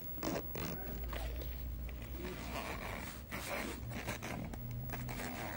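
Zipper on a nylon insulated lunch bag being pulled along its track in several short runs, with the fabric rustling as it is handled.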